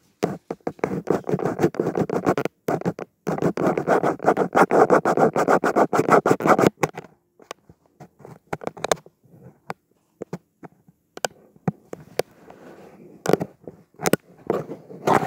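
Loud scratching and rustling close to the microphone for about seven seconds, then only a few faint scattered clicks.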